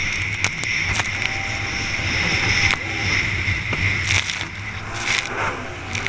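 Stand-up jet ski's engine running hard at racing speed, with water spray and chop hitting the hull in sharp splashes. The level dips for a moment about four and a half seconds in, as the ski banks into a turn.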